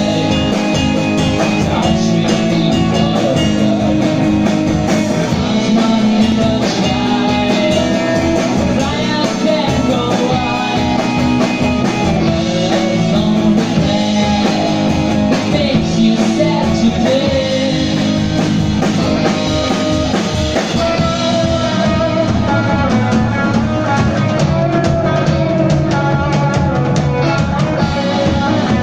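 Live rock band playing: electric bass, electric guitars and a drum kit keeping a steady beat, with a voice singing over them.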